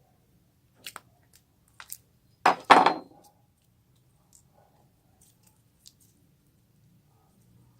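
Homemade slime being pressed and squished by hand: a few small sticky pops, then one loud crackling squelch about two and a half seconds in, followed by faint scattered clicks.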